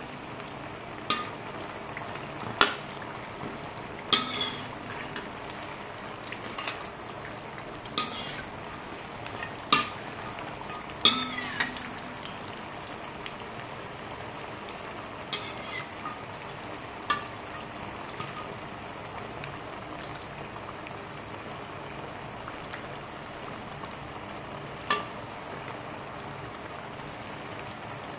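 Oil sizzling steadily as batter fritters deep-fry in a steel wok, with sharp clinks and scrapes of a metal spatula against the wok, some ringing briefly. The clinks come every second or two for about the first twelve seconds, then only now and then.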